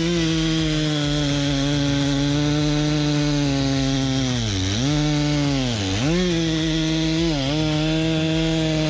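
Two-stroke chainsaw running at high revs with a steady whine, its pitch dipping three times in the second half as the chain bites into wood and the engine is loaded down.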